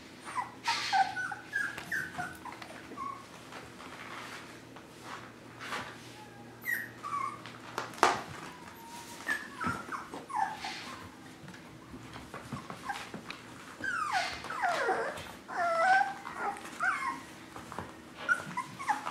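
Five-week-old Mini Swiss Mountain Doodle puppies whining in short, high-pitched cries, scattered throughout and busiest about three quarters of the way in. Light clicks and knocks run in between, with one sharp knock about eight seconds in.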